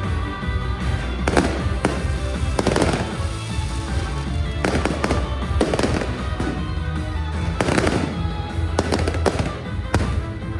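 Aerial firework shells bursting in a series of sharp bangs, roughly every one to two seconds, over music.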